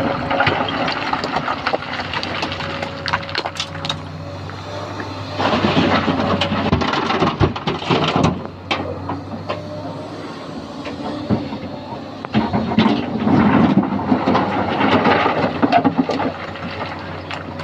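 Sany SY215C excavator's diesel engine running steadily while it loads stone into a dump truck, with two long spells of rocks clattering and knocking, starting about five seconds in and again about twelve seconds in.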